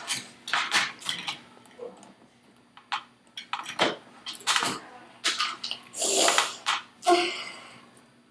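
Plastic toy train track pieces clattering, clicking and scraping as they are handled, set down and fitted together on a tabletop, in a string of short, uneven bursts.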